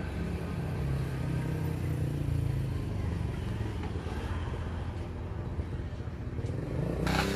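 Low, steady engine rumble of passing road traffic, with a short harsh burst near the end.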